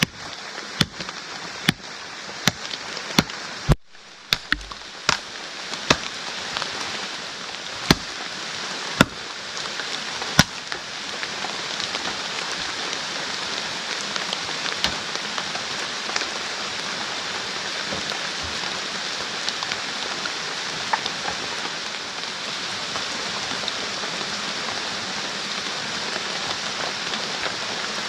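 Heavy rain falling steadily, a dense even hiss. In the first ten seconds it is broken by a series of sharp knocks or clicks, roughly one a second.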